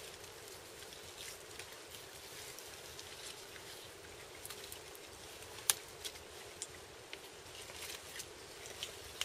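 Faint scattered clicks and crackles of a knife and gloved hands working a deer's hide free during skinning, with one sharper click a little over halfway through, over a steady low hiss.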